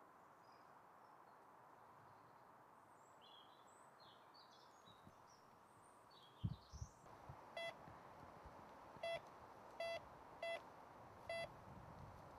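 Metal detector beeping five times in short tones of one pitch as its coil is swept over the ground, the signal that it has picked up metal under the coil. Small birds chirp faintly in the first half, and a low thump comes just before the beeps begin.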